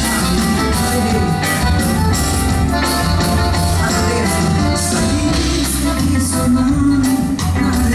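Live band playing a song at a soundcheck, with guitar and a steady bass and beat, and a voice singing over it.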